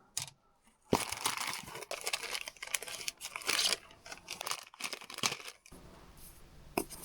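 Plastic packaging crinkling and tearing as it is opened by hand, in a busy irregular run that starts about a second in and dies away about two seconds before the end.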